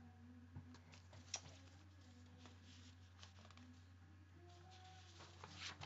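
Near silence: steady low room hum, with a few faint clicks and rustles of a paper sheet being handled.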